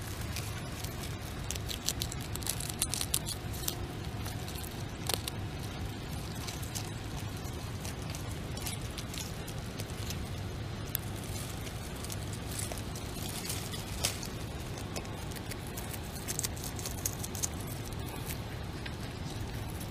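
A beaver kit chewing and tearing at leafy plants close up, with irregular crunchy clicks and crackles in clusters over a steady low rumble.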